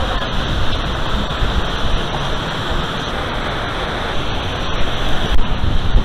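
A steady rushing noise with an uneven low rumble beneath it.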